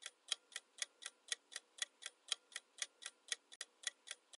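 Clock-ticking sound effect for a quiz countdown timer: a steady run of sharp ticks, about four a second, that stops suddenly near the end.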